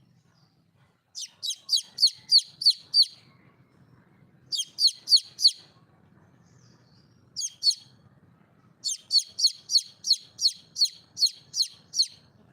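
A bird calling in bouts of sharp, high chirps, each note sliding steeply downward, about three notes a second. There are four bouts: a run of about seven notes, then four, then two, then a longer run of about ten near the end.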